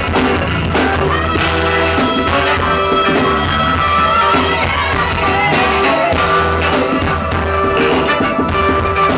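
Live funk band playing loud: saxophones and trumpet over guitars, keyboards, bass and drums, recorded from the audience.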